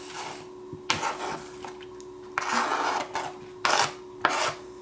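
Irregular scraping, rubbing and light knocking of hands handling food and containers while a salad is made, over a faint steady hum.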